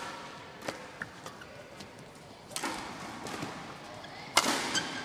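Badminton rally in a large hall: a series of sharp racket strikes on the shuttlecock, the loudest about four and a half seconds in, with sports shoes squeaking briefly on the court just after it.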